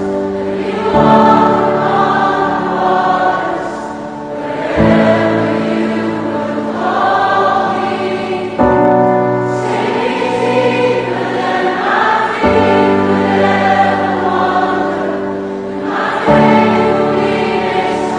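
Background music: a choir singing slow, held chords that change about every four seconds.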